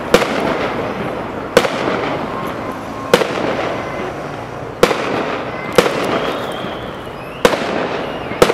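Fireworks display: aerial shells bursting with sharp bangs, seven in all, about every one to two seconds, with steady noise carrying on between them.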